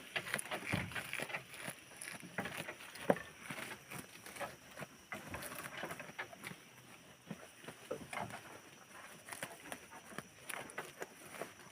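Outdoor farmyard ambience: scattered irregular clicks, knocks and rustles, with a few brief animal calls near the start and one sharper knock about three seconds in.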